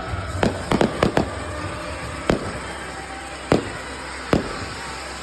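Fireworks display: firework bangs, a quick cluster of about five in the first second or so, then single bangs about a second apart, over a steady low rumble.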